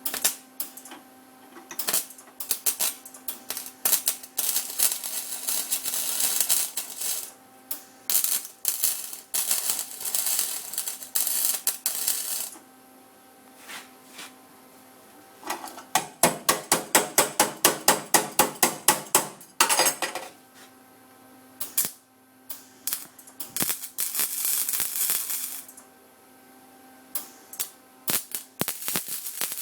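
Arc welding on car body steel: bursts of crackling and sizzling from the welding arc, some long runs and many short tack spurts, with a stretch of rapid evenly spaced pulses about four a second in the middle. A faint steady hum runs underneath.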